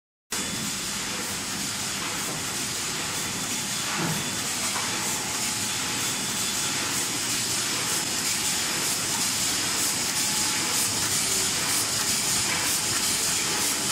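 GUANGYA dual-press hot foil stamping and die-cutting machine running in production, its automatic sheet feeder taking boards off the stack: a steady, even hiss of machinery.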